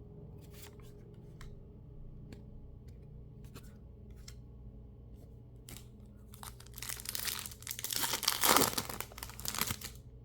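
A few light clicks of cards being handled, then, about six seconds in, a foil Pokémon mini booster pack wrapper torn open and crinkled, loudest about two seconds later before it fades near the end.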